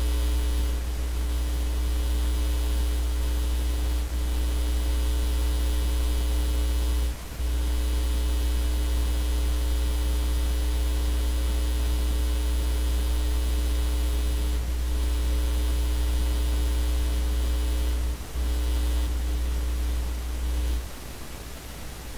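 Steady electrical mains hum with a higher buzz, picked up in the recording. It breaks off for a moment twice and gives way to a quieter hiss about a second before the end.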